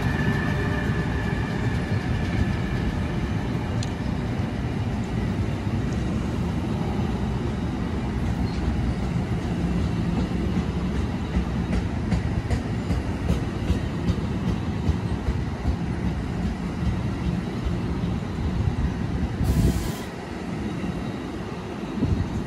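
A passenger train running past on the Northeast Corridor tracks: a steady, loud rumble of wheels on rail that drops off sharply about twenty seconds in.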